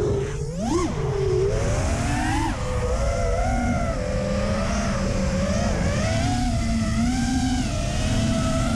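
5-inch FPV racing quadcopter's brushless motors and three-blade props whining, the pitch rising and falling with the throttle. It makes a quick rise and drop in pitch about a second in, then holds a wavering whine.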